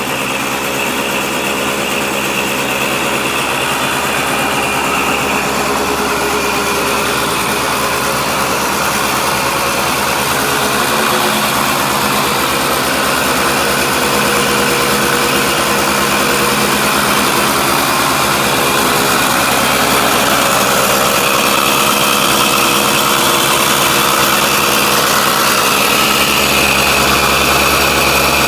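Single-cylinder two-stroke engine of a 1980 Yamaha YT125 three-wheeler, fitted with a DT175 cylinder and top end and a reed-valve intake, running steadily on its own. It is running a little fast rather than at a true idle, and grows slightly louder over the stretch.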